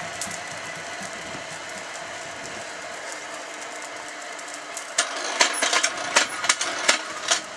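Coal forge fire burning with a steady rushing hiss; about five seconds in, a run of loud, sharp crackles and clicks for two seconds or so.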